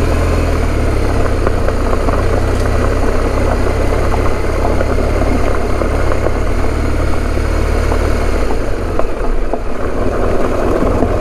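Motorcycle engine running steadily on the move over a gravel road, with loose gravel crackling under the tyres as many small clicks. The low engine note drops back a little about eight seconds in.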